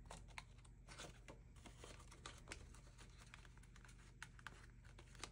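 Faint rustling and crinkling of paper banknotes being handled and slipped into a plastic cash envelope in a ring binder, with many small scattered clicks.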